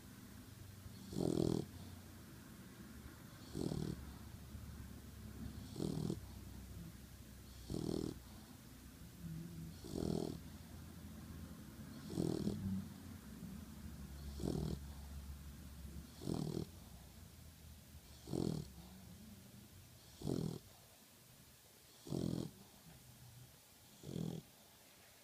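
A sleeping pitbull-mix dog snoring, one snore about every two seconds in an even, regular rhythm.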